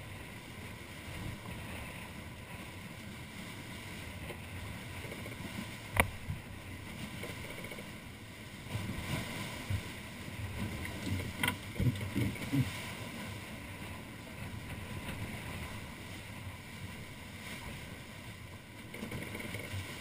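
Wharram Tiki 38 catamaran under sail at around eight knots: steady wind and water noise with gusts buffeting the microphone, heaviest in the middle stretch. A sharp click about six seconds in, the loudest sound, and another a few seconds later.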